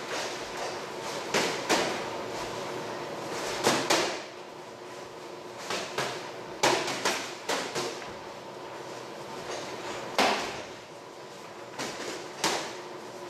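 Boxing gloves landing punches in sparring: a dozen or so irregular sharp smacks, some in quick pairs and flurries, echoing briefly in the gym.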